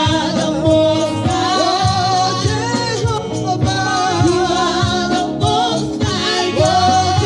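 Gospel worship song: several voices singing, led on a microphone, over a band with a steady beat.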